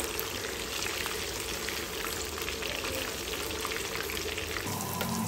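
Marinated chicken pieces frying in hot oil with green chillies and curry leaves in a kadai: a steady sizzle with fine crackling, late in the frying when the chicken is almost done. A low steady hum comes in near the end.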